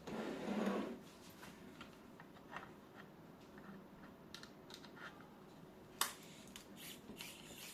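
Small clicks and scrapes of screws being undone and handled while the light's main control board is taken out, with a louder rustle in the first second and a sharper click about six seconds in.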